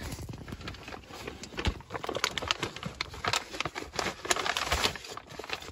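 Packaging rustling and crackling in irregular short clicks as a replacement car radio unit is unwrapped and lifted out.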